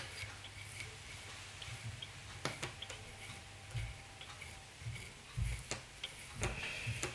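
Fingers picking and preening synthetic fibres out of a twisted dubbing brush at a fly-tying vise: faint, scattered small ticks and rustles, with a few soft low thumps.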